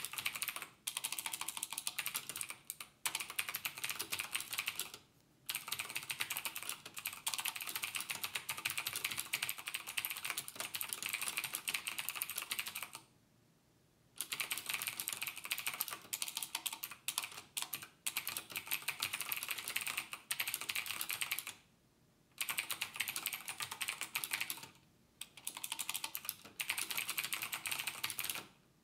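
Fast typing on a computer keyboard, with keys clattering in long runs broken by short pauses; the longest pause lasts about a second, around halfway through.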